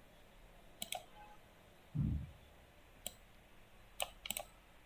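Computer mouse clicks: a handful of short, sharp clicks, some in quick pairs, spread over a few seconds, with one soft low thump about two seconds in.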